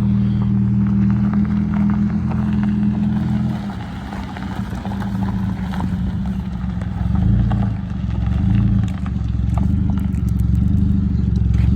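Mercedes C230 engine running with a loud, low exhaust drone. It eases off about four seconds in and swells again around the middle. The exhaust note comes from a hole in the muffler, or perhaps a bad catalytic converter.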